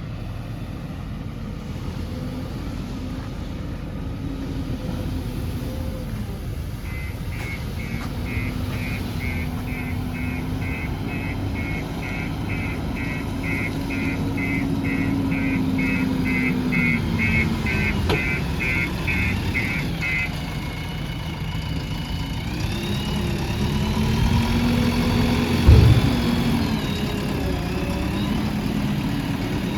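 JCB 3DX backhoe loader's diesel engine running and revving up and down as it works. For a stretch in the middle a reversing alarm beeps rapidly and evenly, and a heavy thump is the loudest moment near the end.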